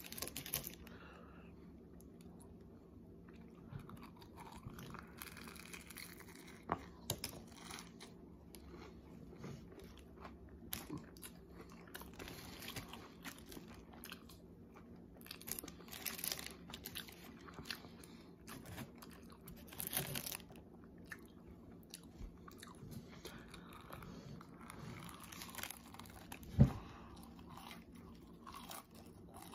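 Close-up chewing and biting of a burger and crunchy cheesy tots, with quiet mouth clicks and crunches over a faint steady hum. A single sharp knock near the end is the loudest sound.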